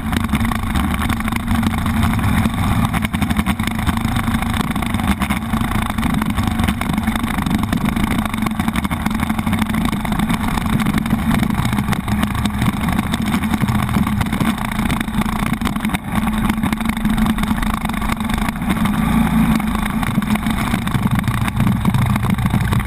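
Motorcycle engine running steadily as the bike rides along, heard through a handlebar-mounted action camera together with wind and road noise.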